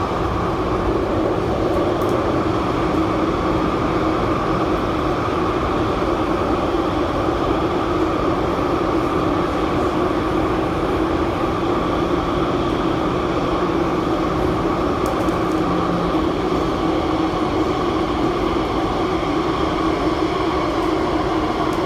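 MTR Tuen Ma Line electric train running at steady speed between stations, heard from inside the car: continuous wheel-on-rail rumble with a steady two-pitch hum from the running gear and traction motors.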